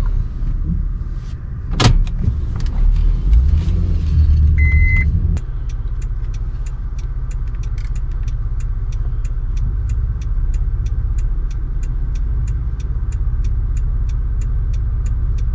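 Inside the cab of a 2007 Honda Ridgeline: low engine and road rumble as the truck pulls onto the shoulder, with a sharp click about two seconds in and a short beep near five seconds. Then the truck idles while the indicator ticks steadily, about three ticks a second.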